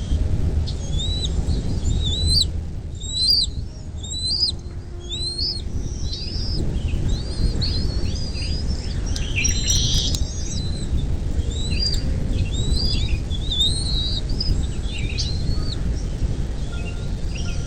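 Several birds chirping, short high hooked calls repeating and overlapping throughout, over a steady low rumble.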